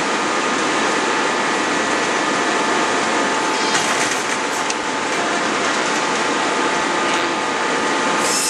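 Steady industrial machinery noise from the hydraulic forging hammer and forging manipulator running, with several steady whining tones over a dense rumble. A faint clank comes about four seconds in.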